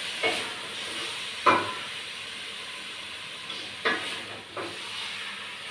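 A spoon stirring fenugreek leaves as they cook down in a steel pot, scraping and knocking against the metal a few times, the sharpest about a second and a half in, over a steady hiss.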